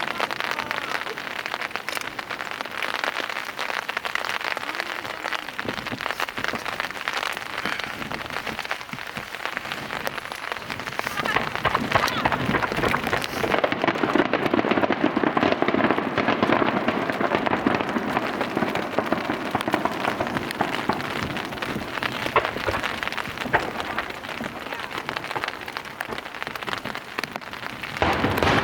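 Rain pattering steadily close to the microphone, a dense hiss of fine drops, growing heavier about twelve seconds in.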